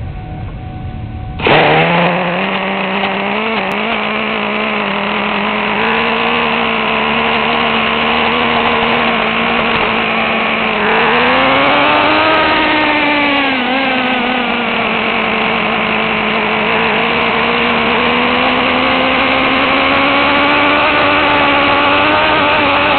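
Traxxas T-Maxx RC truck's small nitro engine running at high revs, a steady high-pitched buzz heard close up from a camera strapped to the truck. It starts abruptly about a second and a half in, rises and falls in pitch once about halfway through, then holds high.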